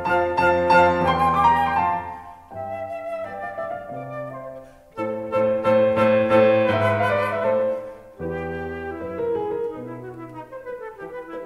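Instrumental music in a classical style: held chords with a flute-like lead, swelling and falling in phrases a few seconds long.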